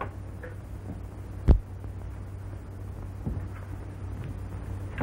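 Steady low hum of an old 1930s film soundtrack, with one sharp knock about a second and a half in and a fainter one a little after the middle.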